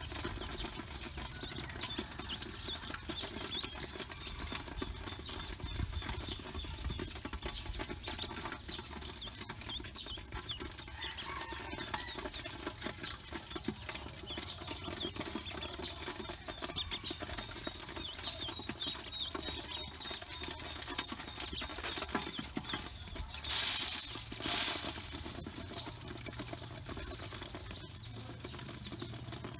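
A bowlful of Pekin ducklings peeping continuously, many short high peeps overlapping. There are two brief loud rustling bursts close together about 24 seconds in.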